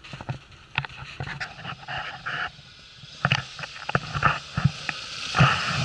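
Heavy, rapid panting breaths close to the microphone, mixed with crunching footsteps in snow.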